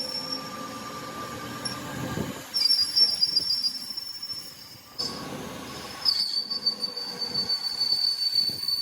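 Metalworking on steel: a high, steady metallic squeal that jumps in pitch and breaks off a few times, over a low rumble.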